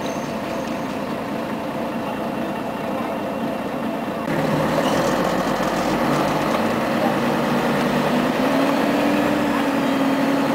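Engine and running noise heard from inside a 1996 Scania CN113ALB city bus on the move. It gets louder suddenly about four seconds in, and an engine tone rises slightly near the end.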